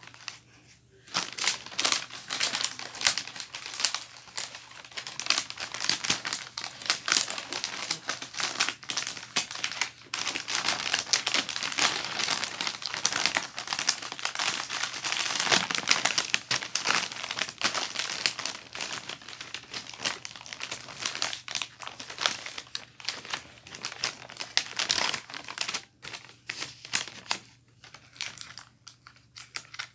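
Wrapping paper crinkling and rustling as it is handled and folded around a present, continuous and irregular, thinning out near the end.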